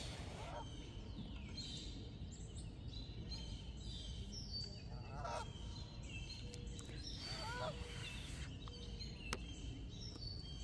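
Geese honking faintly in two short bursts, about halfway through and again a couple of seconds later, with songbirds chirping and a steady low outdoor rumble underneath.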